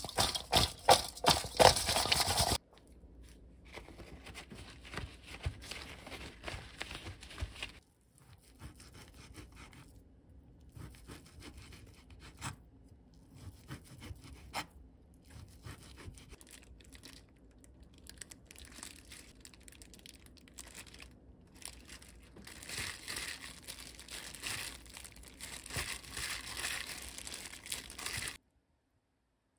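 Food-preparation sounds in three parts. First, cucumber slices are tossed with salt by hand in a stainless steel bowl, a loud clattering rustle. Then a kitchen knife slices through a stack of thin raw beef on a cutting board, quieter scraping strokes. For the last five seconds the sliced beef is mixed by hand in a glass bowl, a busier, wetter sound that cuts off abruptly just before the end.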